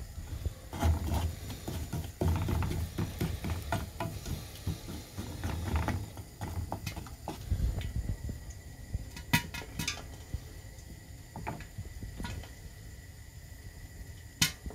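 Clatter and scraping of pans and a wooden spoon on a gas hob, then quieter sizzling of popcorn kernels heating in oil under a glass lid, with a few sharp clicks about nine seconds in and again near the end.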